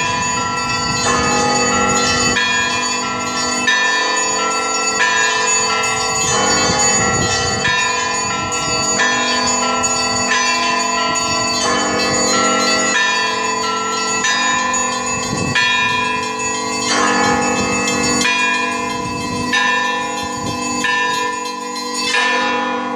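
Russian church bells of several different pitches ringing together. Their strikes fall in a steady rhythm about every second and a quarter, each new strike sounding over the ringing of the last.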